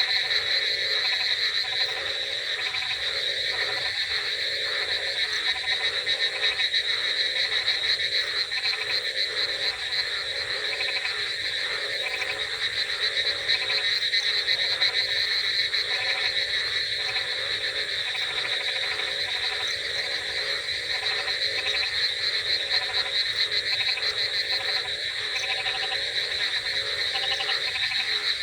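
Dense chorus of many frogs calling continuously: a steady high trilling over rapid, repeated croaks.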